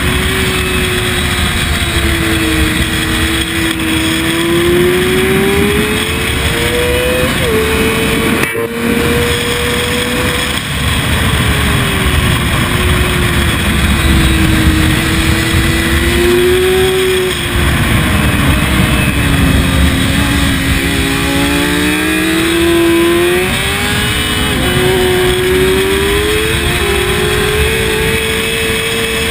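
Sport motorcycle engine ridden hard, heard from on board: its pitch climbs under acceleration, steps at quick gear changes and sinks under braking, several times over, with steady wind rush over the microphone.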